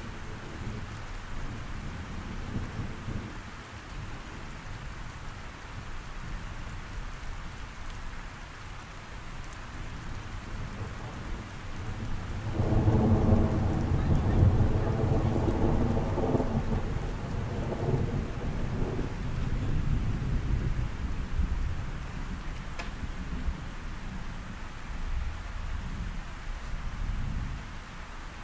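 Steady rain with low thunder rumbling under it. Near the middle a louder rumble swells for several seconds, carrying a low hum, then eases off.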